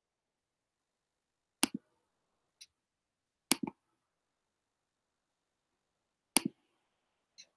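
Three sharp double clicks, about two seconds apart, with two fainter single ticks between them.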